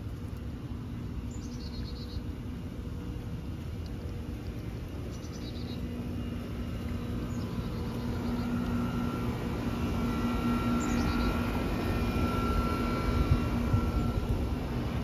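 A steady mechanical hum over a low rumble grows louder through the second half and eases near the end, while a bird gives short descending chirps about four times.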